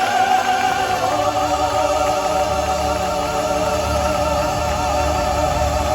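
Operatic classical-style singing, live: voices hold a long note with wide vibrato, moving to a new sustained note about a second in, over music.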